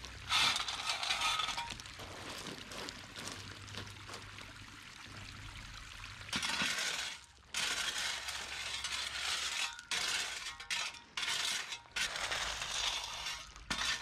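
Coarse 16–32 mm gravel being spread and scraped with a long-handled metal tool, the pebbles clinking and crunching against each other and the blade. It comes in several stretches that start and stop abruptly.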